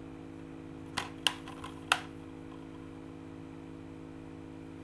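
Plastic DVD case being handled and snapped shut: a quick cluster of clicks between about one and two seconds in, two of them sharp, over a steady background hum.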